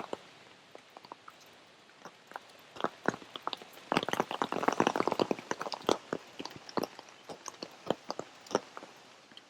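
Large raindrops dripping and tapping irregularly close by, with a dense flurry of drops about four seconds in.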